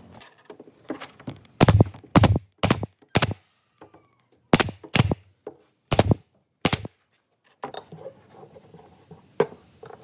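Pneumatic nail gun firing into a pine board on a wooden tabletop: four sharp shots about half a second apart, a short pause, then four more. A few lighter clicks and knocks come from the handling around them.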